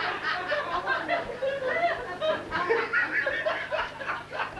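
Audience laughing and chuckling, many voices overlapping.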